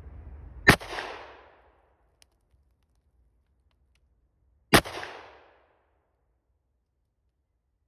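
Two shotgun shots about four seconds apart, each a sharp crack followed by a trailing echo, firing handloaded 32 g Özkara Gualandi slugs over 1.90 g of CSB1 powder.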